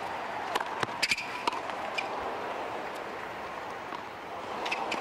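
Tennis rally on a hard court: a cluster of sharp racket-on-ball strikes and ball bounces in the first second and a half, with short shoe squeaks later, over a steady stadium crowd murmur.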